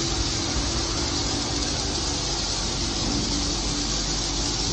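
Many swiftlets twittering together inside a concrete swiftlet house, a dense, steady high-pitched chatter with no pauses.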